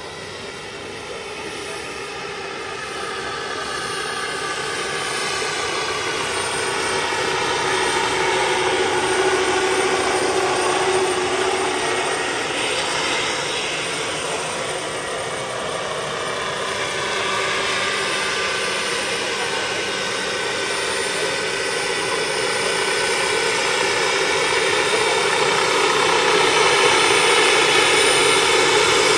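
Turbine engine and rotor of a radio-controlled scale Mi-24 Hind helicopter running: a steady whine over rushing rotor noise. It grows louder over the first several seconds, eases off in the middle and builds again near the end.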